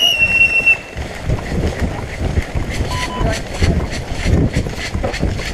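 A steady high-pitched tone stops under a second in. Then comes wind and handling rumble on a body-worn camera, with regular knocks and rattles about two to three a second from a player's footsteps and gear.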